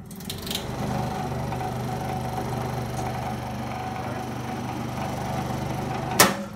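Pow-R-Kraft 230 transformer stick welder switched on with no arc struck: its transformer buzzes steadily and its cooling fan comes up to speed in the first second and keeps running. Near the end the power switch snaps off with a loud click and the hum stops.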